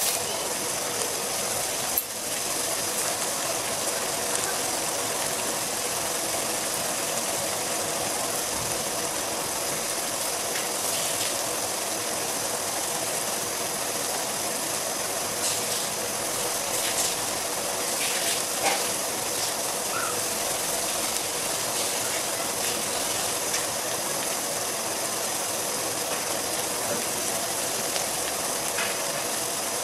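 Diced chicken breast and sliced onions sizzling in oil in a frying pan: a steady hiss with a few faint crackles.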